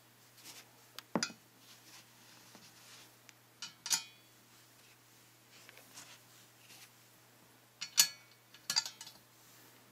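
Sharp metallic clinks and clicks from the aluminium stand of a Philips BDM4065UC monitor and its mounting bracket being handled and fitted together. The clinks come in scattered groups: one about a second in, a pair near four seconds, and a cluster near the end.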